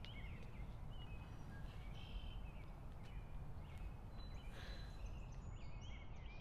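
Quiet room tone: a steady low hum with faint, short high chirps scattered through it, and a brief soft hiss about four and a half seconds in. The sound cuts off right at the end.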